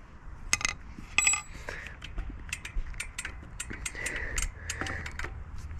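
Metal clicks and clinks of an Allen key working a bolt loose on a BMX's three-piece crank. A string of sharp ticks, two of them ringing briefly.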